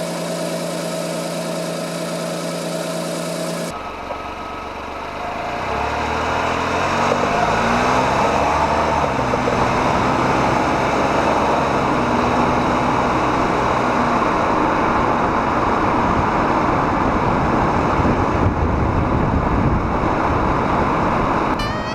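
Small car engine idling with a steady hum, then after a cut the car pulls away, its engine pitch rising as it accelerates, and settles into steady driving with dense road and wind noise.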